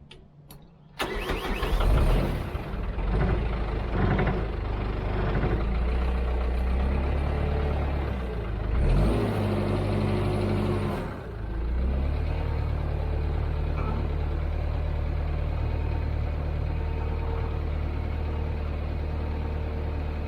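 Cat 226B skid steer's diesel engine starting up about a second in. It revs up and back down briefly around the middle, then settles into a steady idle.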